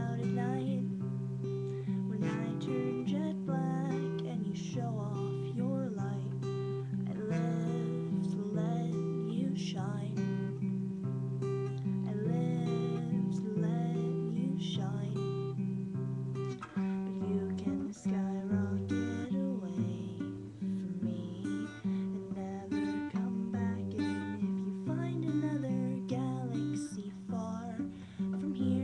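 Acoustic guitar playing chords, strummed and picked, through an instrumental stretch of a song.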